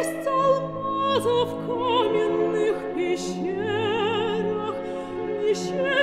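An operatic voice singing a slow, held melody with wide vibrato over an orchestral accompaniment.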